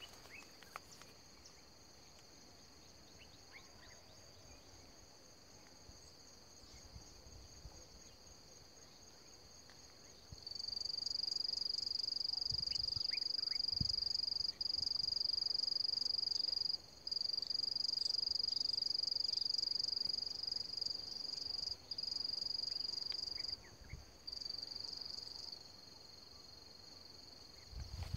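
A steady high-pitched insect drone. About ten seconds in it turns much louder, holds for some fifteen seconds with a few brief breaks, then drops back to a fainter drone. A few soft low thumps.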